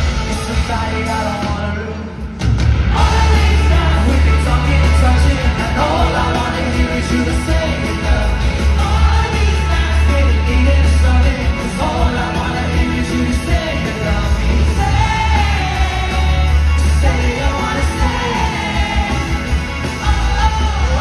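Live pop-rock band with a singer, played loud through an arena's sound system and heard from the seats, with heavy bass under a melodic vocal line. The bass drops out briefly about two seconds in, then the full band comes back.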